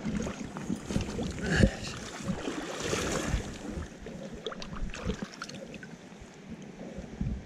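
Close, irregular knocks and rustles of handling as a freshly landed trout is unhooked, over a steady rush of river water; a sharper knock comes about one and a half seconds in.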